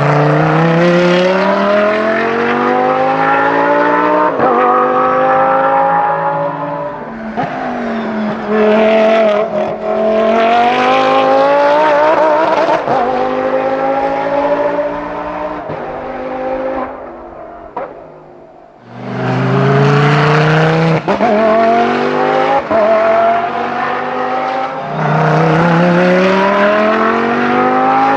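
Audi R8 LMS Ultra GT3 race car's V10 accelerating hard on track, its exhaust note rising in pitch again and again through quick upshifts. About two-thirds through it fades into the distance, then comes back loud with another run of rising revs and upshifts.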